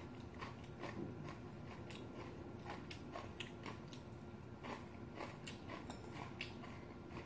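Soft eating sounds of a person chewing ramen noodles: irregular small mouth smacks and light clicks, scattered throughout.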